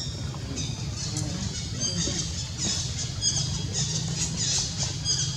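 Baby macaque making rapid, repeated high-pitched squeaks, over a steady low hum.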